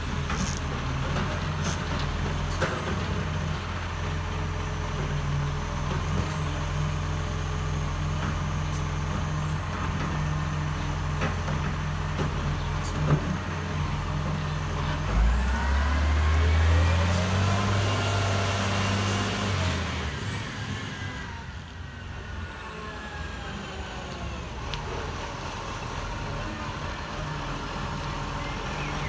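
Dennis side-loader garbage truck's diesel engine idling steadily, then revving and pulling away about halfway through, its pitch rising as it picks up speed. After a sudden change the truck's engine runs more quietly and evenly as it approaches.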